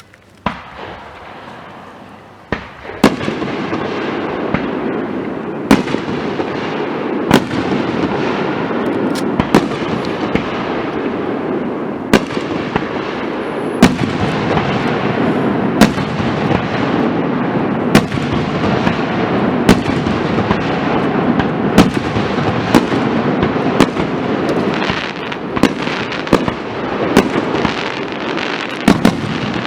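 Aerial fireworks going off: after a quieter start with a single bang, a continuous barrage builds about three seconds in, with sharp bangs every second or two over a steady rumbling crackle.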